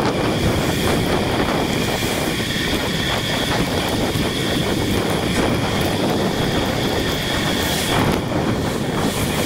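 Wind rushing over the microphone of a camera on a moving bicycle, mixed with traffic and wet-road noise, with a faint steady high tone above it.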